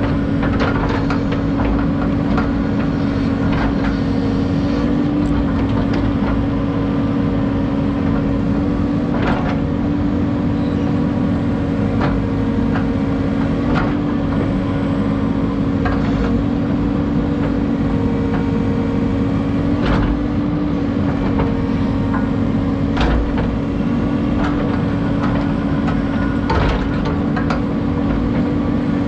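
Excavator diesel engine running steadily while digging, with scattered sharp knocks and clatter through it.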